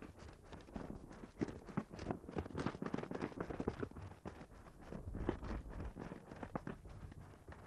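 Inline skates clattering on concrete steps and paving stones: a run of irregular clicks and knocks from the skates' wheels and frames, busiest in the first half and again a little past the middle.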